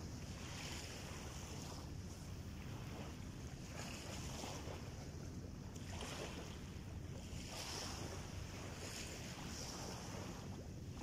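Small waves washing onto a sandy beach, a hissing surge every second or two, over a steady low rumble.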